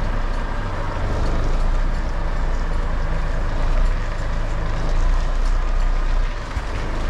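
Diesel engine of a tractor-semitrailer truck running with a steady low rumble while the truck is manoeuvred onto a loading dock.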